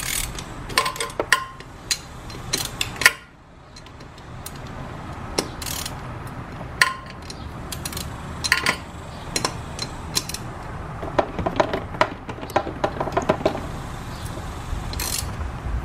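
Socket ratchet clicking in short runs on a long extension, with light metal clinks, as the exhaust header bolts are loosened; a longer quick run of clicks comes in the second half.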